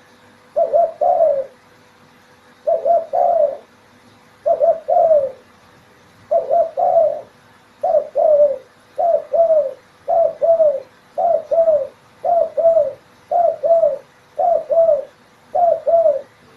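Spotted dove (derkuku) cooing the repeated 'nguku' call: twelve short double coos, spaced about two seconds apart at first and coming about once a second after the first few.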